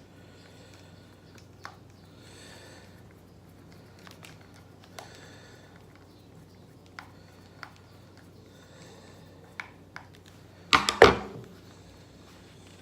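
Scattered small clicks and taps of hands handling the parts of an Andis Pro Alloy hair clipper as its lever handle is fitted back on, with faint rustling between them and a louder cluster of clacks near the end.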